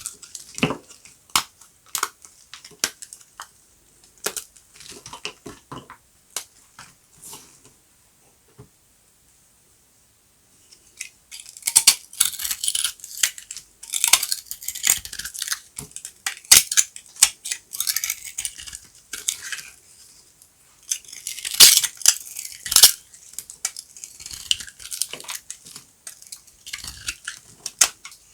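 Knife cutting dry, crunchy soap: scattered sharp clicks and cracks at first, a pause of a few seconds, then long runs of dense, crisp crackling as the blade goes through.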